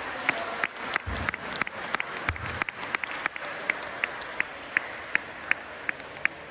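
Spectators applauding, with a few sharp single claps standing out. Later on the claps fall into a steady beat of about three a second, and the applause slowly dies down.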